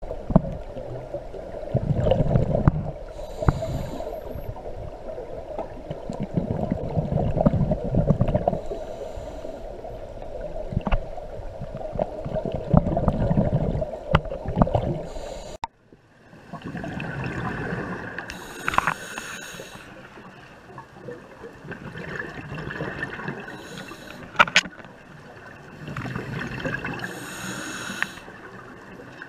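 Scuba diver's breathing heard underwater: bursts of exhaled regulator bubbles gurgling every few seconds over a steady hum, with a sudden break and change in the sound about halfway through.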